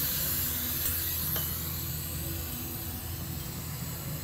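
TIG welding arc on a small schedule 40 steel tube, running a steady hiss with a low hum beneath it as filler rod is fed into the joint.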